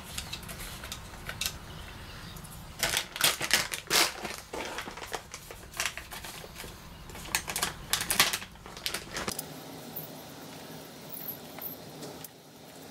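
Light clicking and clattering of small parts being handled as the air inlets are fitted to the compressor pumps, busiest from about three to nine seconds in. A low background rumble cuts out about nine seconds in.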